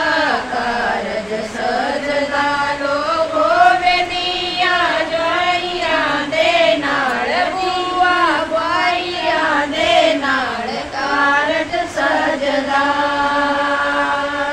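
A group of women singing a folk song together, unaccompanied, with gliding, drawn-out notes; near the end they hold one long, steady note.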